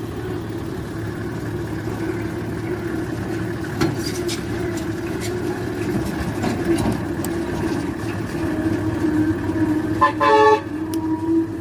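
Heavy truck's engine running as it drives slowly past, growing louder towards the end, with a short vehicle horn toot about ten seconds in.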